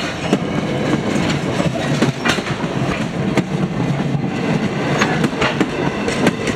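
Wooden passenger coaches of a heritage steam train rolling past close by: a steady rumble of steel wheels on rail, with irregular sharp clicks as the wheels pass over the track joints.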